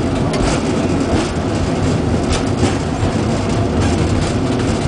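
Hong Kong Peak Tram funicular car running along its rails: a steady rumble with a few short clicks.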